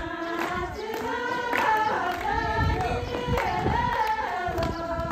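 A group of voices, women's prominent, singing a folk song together in long held, gliding notes, the song of a circle dance.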